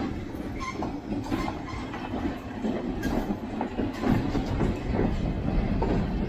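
Short passenger train hauled by an ex-Pennsylvania Railroad EMD GP9 diesel rolling past while coasting downhill: a steady low rumble with irregular knocks from the wheels crossing rail joints.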